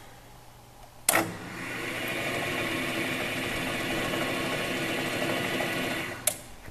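Resaw power feeder on a bandsaw switched on with a click about a second in, its motor and roller running steadily for about five seconds, then stopping, with another click near the end.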